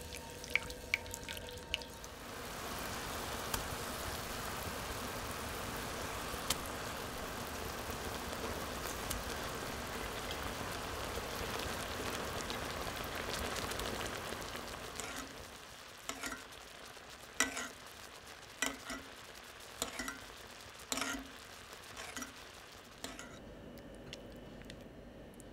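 Lemon-caper sauce stirred with a spatula in a skillet, then cod fillets sizzling steadily as they pan-fry in hot fat. After about fifteen seconds the sizzle drops away and a series of light utensil taps and clicks on the pan follows.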